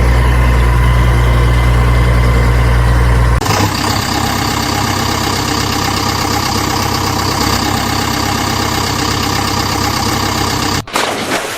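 Engine idling steadily, with an abrupt switch about three and a half seconds in to a different, lighter-sounding engine, which runs on until it cuts off sharply near the end.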